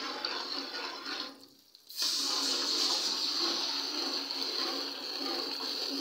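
Hot desi ghee sizzling as soaked semolina is stirred into it with a metal spatula. The sizzle dips away briefly about a second and a half in, then comes back louder and hissier.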